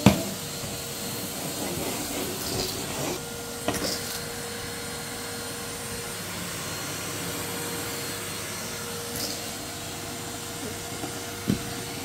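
Numatic Henry vacuum cleaner running steadily with a constant hum. There is a sharp knock right at the start and lighter knocks about four seconds in and near the end.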